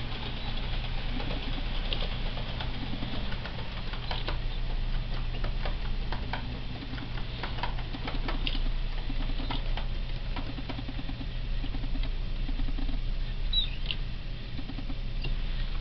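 HO-gauge model train running on the layout's track: a light, uneven patter of short rattles and small clicks over a steady low hum.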